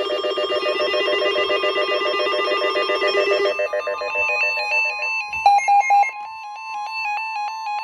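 Electronic emergency-alert tones. A rapid, ringing warble runs for about three and a half seconds, then gives way to beeps stepping back and forth between a low and a high pitch over a steady high tone.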